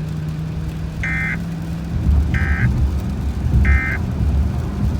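Three short bursts of Emergency Alert System digital data tones from a car radio, about 1.3 s apart: the end-of-message code that closes the warning. Low car rumble runs underneath.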